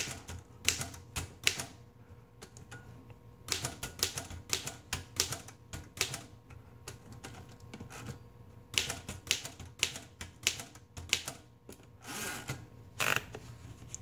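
Royal Model P portable typewriter being typed on in three or four short runs of sharp key strikes, with pauses of a second or two between runs.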